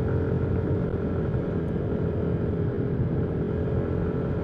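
Yamaha NMAX scooter's single-cylinder engine running at a steady cruise, with an even whine over a low rumble of wind and road.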